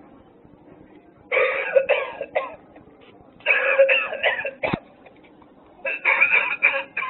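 Novelty lung-shaped coughing ashtray playing its recorded hacking smoker's cough, set off by ash landing in the dish: three raspy bouts about two seconds apart, with a sharp click between the second and third.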